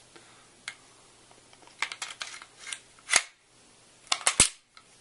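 Glock 27 pistol's slide being slid back onto its frame during reassembly: a series of sharp metal-on-polymer clicks and clacks, one loud clack about three seconds in and a quick cluster of three or four just after four seconds, the last the loudest.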